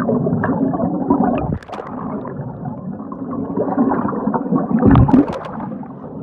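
Muffled underwater sound of a swimming pool, heard by a submerged camera: water sloshing and gurgling as a swimmer moves, with a loud rush of bubbles about five seconds in.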